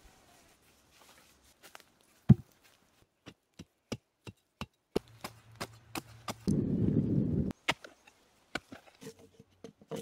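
Axe chopping wood: one heavy, loud blow about two seconds in, followed by a quick run of lighter, sharp knocks about three a second. A second-long low rumble breaks in past the middle.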